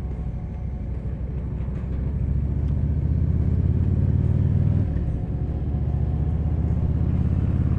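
Harley-Davidson V-twin motorcycle engine running on the road, a low steady engine note that grows louder about two seconds in and dips briefly about five seconds in before picking up again.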